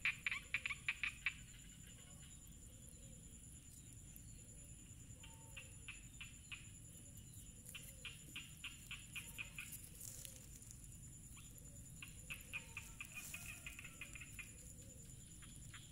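Faint animal calls: repeated trains of rapid clicking pulses, about five a second, each train lasting one to two and a half seconds, with the loudest train at the start. Under them run fainter short notes repeating about twice a second and a steady high whine.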